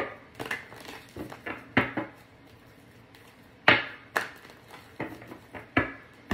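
Tarot cards being shuffled and handled on a table: a string of irregular sharp taps and slaps, the loudest a little under four seconds in.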